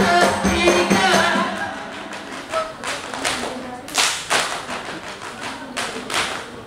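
Ratoh Jaroe dance: a group singing over rattling music for about the first two seconds, then sharp unison hand claps and body slaps from the seated dancers, struck singly at uneven gaps, the loudest about four and six seconds in.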